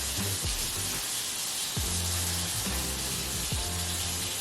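Background music with a steady bass line and regular low beats, over a constant hiss.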